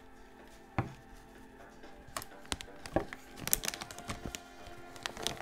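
Rigid cardboard perfume boxes and a perfume bottle being handled: scattered light knocks and clicks, a single one about a second in and a cluster between about two and four seconds in, over background music.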